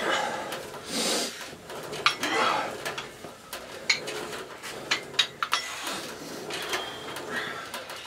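Metal gym equipment clinking and clanking in use, with scattered sharp metallic clicks and a few louder clanks.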